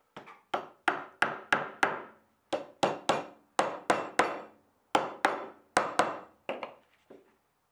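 A hammer tapping mosaic pins through a knife's wooden handle scales and tang, setting them in epoxy. About twenty sharp, briefly ringing strikes come roughly three a second in short runs with brief pauses, and the last few are lighter.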